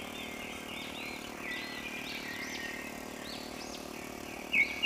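Birds chirping: many short arching whistled notes, with a louder run of quick chirps near the end. Underneath is a faint, steady engine hum.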